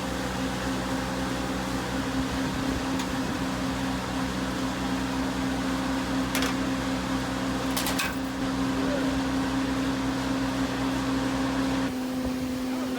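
Steady mechanical drone of running farm machinery, with a couple of sharp metallic clicks about six and eight seconds in. Part of the low hum drops away near the end.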